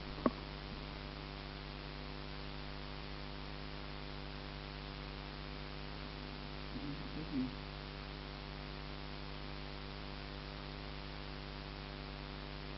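Steady low electrical hum with hiss. There is a sharp click just after the start and a brief faint sound about seven seconds in.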